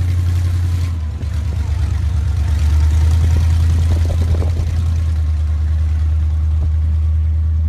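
Monster truck engine running with a steady deep drone; it eases briefly about a second in, then picks up slightly a couple of seconds in.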